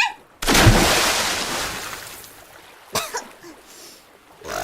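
A sudden water splash about half a second in that fades away over the next two seconds, then a brief voice-like sound about three seconds in.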